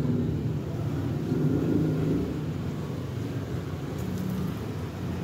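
Steady low motor rumble with a wavering hum, no sharp knocks.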